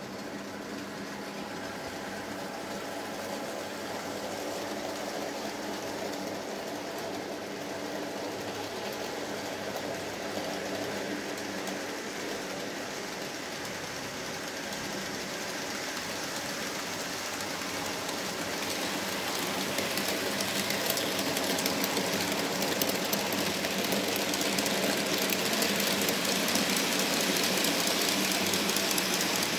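N-scale model freight train running on the layout's track: a steady electric motor whir with the rattle of small wheels on the rails. It grows steadily louder, most of all in the last third, as the locomotive comes close.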